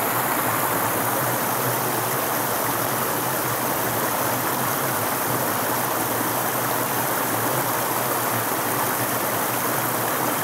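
River water flowing and rushing over stones: a steady, even rush with no breaks.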